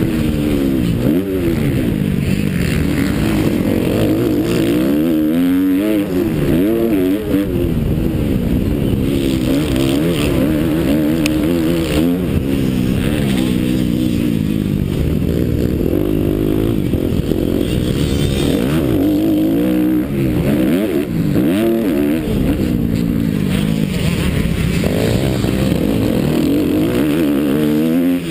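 Motocross bike engine heard close up from a helmet-mounted camera, its revs rising and falling over and over as the bike is ridden round the track.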